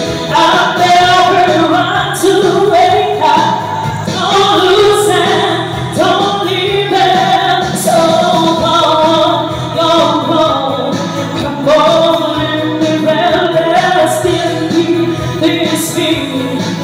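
A woman singing into a handheld microphone over musical accompaniment, her voice amplified and loud.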